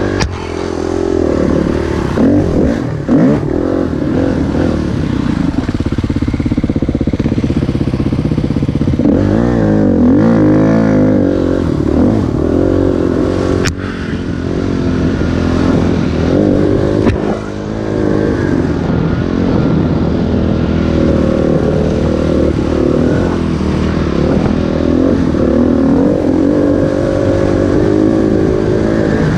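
Dirt bike engine carried under the rider, revving up and down with the throttle as it is ridden over rough ground. There is a single sharp knock about halfway through.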